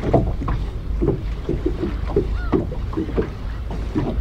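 Small waves lapping and slapping irregularly against the hull of a hand-rowed boat over a steady low rumble, with a brief squeak about two and a half seconds in.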